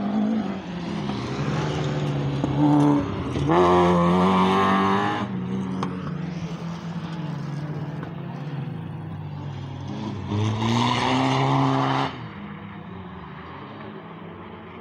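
Rallycross car engines at high revs as the cars race past on a dirt track. The sound is loudest about three and a half to five seconds in and again from about ten and a half to twelve seconds, where the engine pitch rises as a car accelerates.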